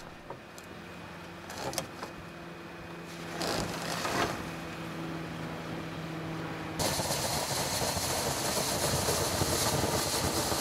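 Insulation blowing machine running with a steady hum and a few knocks. About seven seconds in, it changes abruptly to a louder, steady hiss: air and cellulose paper flakes rushing out of the blowing nozzle.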